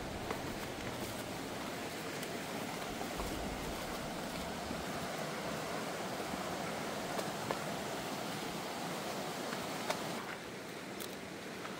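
Alcantara River water flowing steadily through the lava-rock gorge, with a few faint clicks; it drops a little in level near the end.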